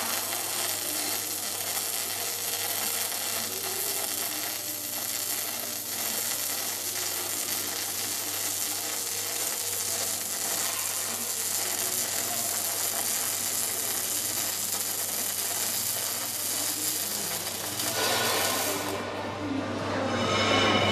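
Robotic arc welding: a steady crackling arc over a low, even hum.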